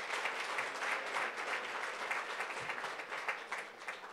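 Audience applauding, many people clapping, tapering off near the end.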